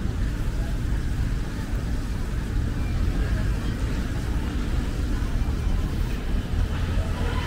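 Outdoor city ambience: a steady low rumble, with faint voices in the background.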